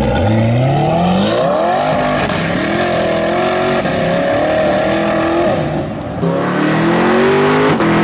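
Twin-turbocharged C8 Corvette V8 accelerating hard, the revs climbing, holding high, then dropping at an upshift about six seconds in before climbing again.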